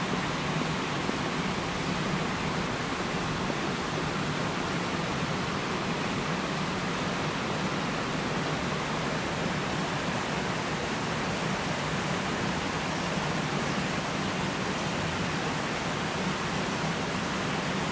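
Steady rushing of water flowing along a shallow stone-walled canal, an even hiss without breaks.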